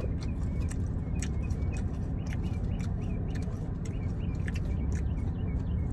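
Plastic salad containers and forks clicking and rustling as two people eat, over a steady low hum in the car, with faint short high chirps scattered through.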